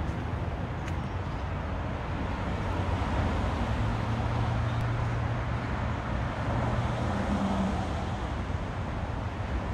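Steady noise of road traffic. A deeper drone swells from about four to seven seconds in, as a heavier vehicle passes.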